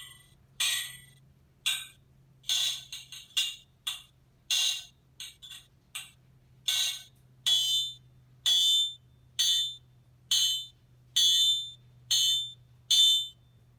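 Recorded blacksmith hammer blows on metal played from a small sound-effect chip through a tiny speaker: sharp, ringing clangs at an uneven pace of one or two a second, some in quick double or triple strikes. It sounds tinny, with no bass, over a faint steady low hum.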